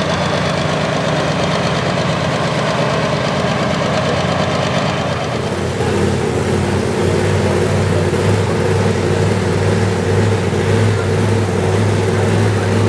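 Diesel engine of a John Deere classic super stock pulling tractor idling steadily while hooked to the pulling sled, a little louder and deeper from about six seconds in.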